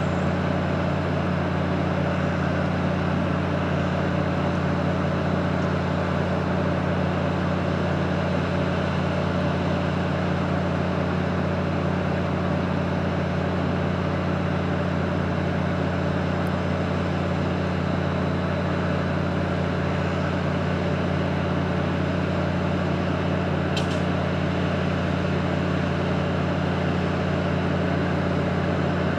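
Diesel multiple unit's engine idling steadily, a constant low drone that does not change.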